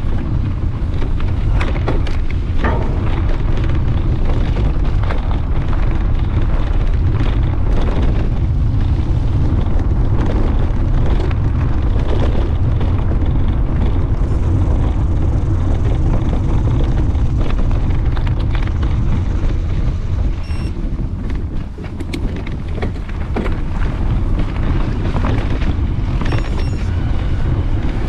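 Wind buffeting the microphone of a handlebar-mounted camera on a moving mountain bike: a loud, steady low rumble, with scattered knocks and rattles from the bike over rough ground.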